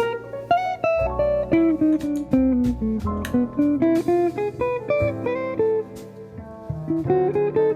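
Background music: a guitar playing a run of plucked single notes over a steady bass line.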